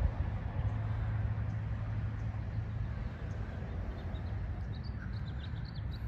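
Outdoor ambience with a steady low rumble, and a small bird chirping in quick, high-pitched notes from about four and a half seconds in.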